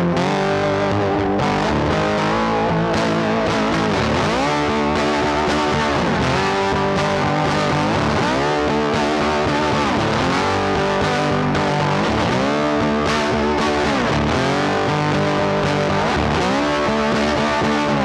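Background music: rock with distorted electric guitar played through effects, a steady driving track.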